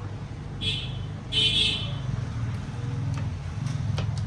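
Small screws being undone from a laptop's bottom cover: light clicks, with two short high-pitched squeals about a second in, over a steady low hum.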